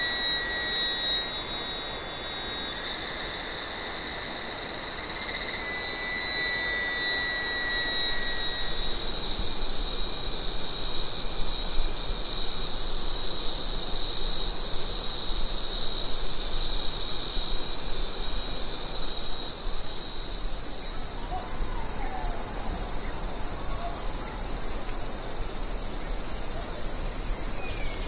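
Chorus of insects trilling, several steady high-pitched trills layered together, with a pulsing trill joining in about nine seconds in.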